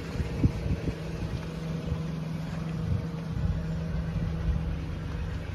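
Small engine idling steadily, which the scene points to as the 1993 Mitsubishi Minicab kei truck's own. Low irregular thumps of wind hit the microphone.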